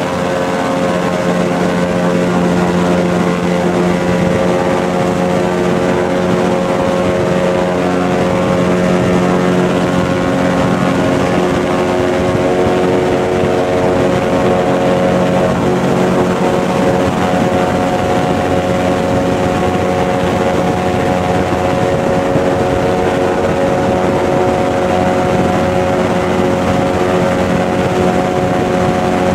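Airboat's engine and large air propeller running loud and steady at speed, a dense drone of many engine tones over rushing air.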